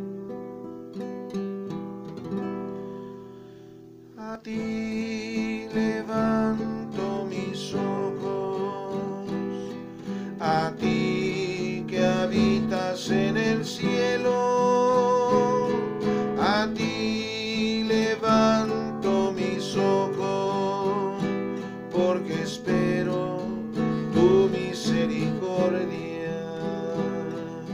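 Acoustic guitar playing an instrumental introduction: a few notes ring out and fade over the first four seconds, then strummed chords start about four seconds in and carry on in a steady rhythm.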